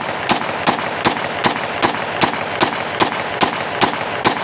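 30-bore (7.62×25 mm Tokarev) pistol fired in a rapid, evenly paced string of shots, about two and a half a second, roughly a dozen in all, each shot sharp and loud.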